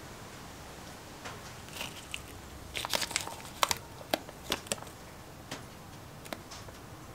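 Paper masking tape crinkling and crackling as it is pulled from the roll and pressed around a spark plug. A scatter of sharp crackles starts about a second in and is densest in the middle.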